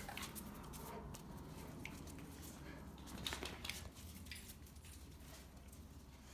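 Rottweilers shuffling and clicking about between their vocalisations: faint scattered clicks over a low steady hum, with a brief cluster of louder clicks about three and a half seconds in.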